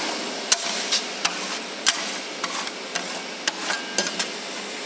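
Metal scraper working over the frozen steel pan of a fried (rolled) ice cream machine, with irregular sharp scrapes and taps about two a second over a steady hiss.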